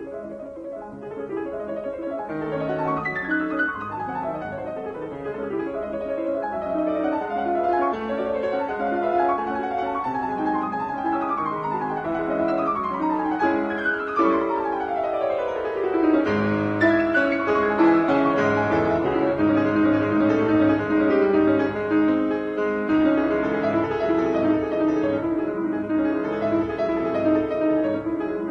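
Background piano music in a classical style, with quick descending runs about halfway through.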